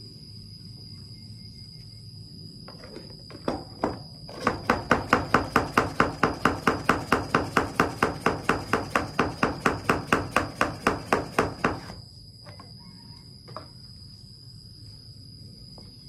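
Manual plunger milk frother pumped fast in a stainless steel jug, a quick rhythmic squelching of about five strokes a second for about seven seconds, starting after a couple of knocks. A steady high insect trill runs underneath.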